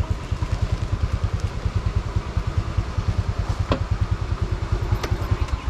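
Motorcycle engine idling with a fast, even low putter, then cutting off abruptly at the very end.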